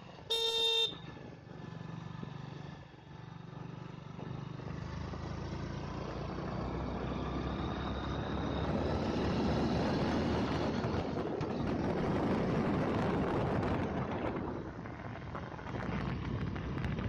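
A vehicle horn toots once, briefly, just after the start. Then a motorcycle engine runs steadily on the move, under wind noise on the microphone that grows louder through the middle.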